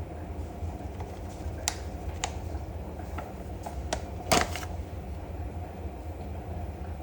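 Scattered light clicks and one louder knock about four seconds in, like utensils and dishes being handled during food preparation, over a steady low hum.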